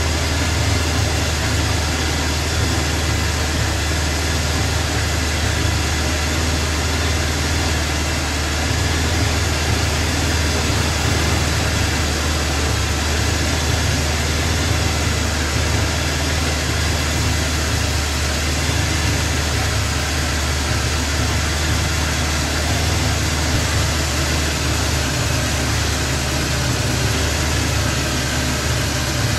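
Honda Shadow V-twin motorcycle engine idling steadily.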